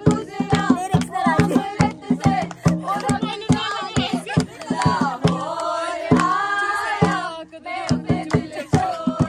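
Singing over a dholak drum beat of about four strokes a second, with the drum briefly dropping out around the middle.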